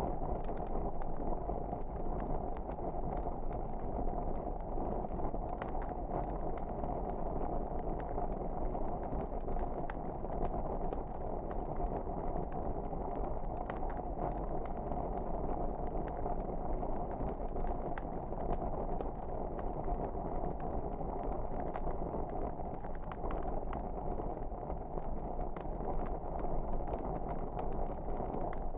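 Wood fire burning in a fireplace: a steady low rushing of flames with frequent irregular sharp crackles and pops.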